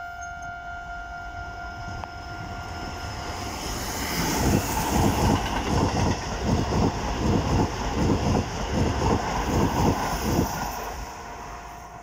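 Keisei 3000 series electric commuter train passing through a level crossing at speed, its wheels clattering rhythmically over the rail joints; the clatter swells about four seconds in and fades near the end. At the start the crossing's warning bell rings as a steady high tone.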